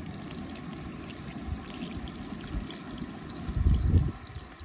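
Water trickling and splashing, with a louder low rumble for about half a second near the end.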